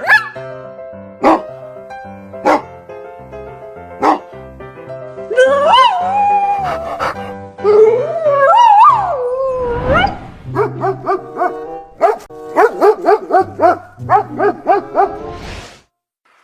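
Dog barking over background music: a few single barks, then drawn-out calls rising and falling in pitch in the middle, then a fast run of barks, several a second, near the end.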